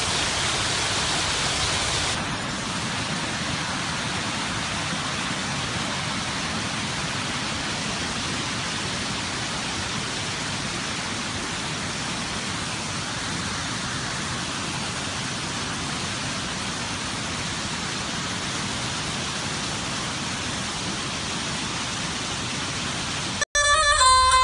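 Rushing water of a waterfall, a steady even hiss of falling white water. It drops a little in level about two seconds in, then runs on unchanged. Near the end it cuts off abruptly and music comes in.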